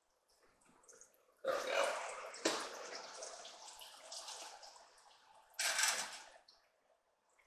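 Hot oil sizzling and bubbling in a frying pan as battered squash slices are scooped out with a slotted spoon, flaring up in three sudden bursts about one and a half, two and a half and five and a half seconds in.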